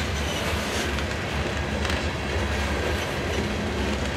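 Loaded covered hopper cars of a grain train rolling past: a steady low rumble of steel wheels on rail, with a few faint, irregular clicks.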